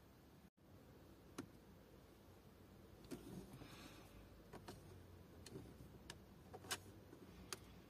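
Near silence broken by a handful of faint, sharp clicks: fingertip taps on the glass touchscreen of an SWM 160C car radio, the last two the loudest.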